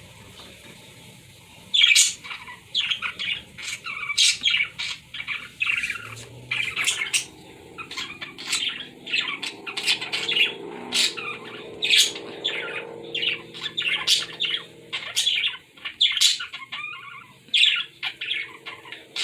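Pet birds squawking and chirping in short, sharp calls, several a second, starting about two seconds in.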